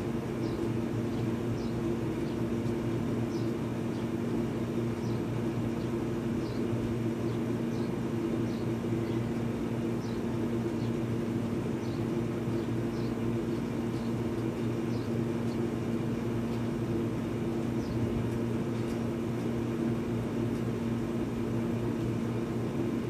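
Steady low machine hum at an even level, with faint short high ticks now and then.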